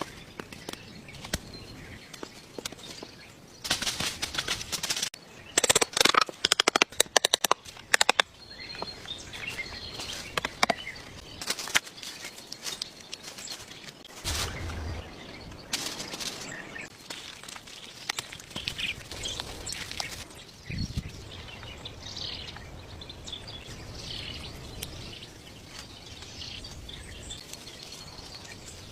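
Birds chirping in forest ambience, with a dense run of sharp clicks and cracks about four to eight seconds in.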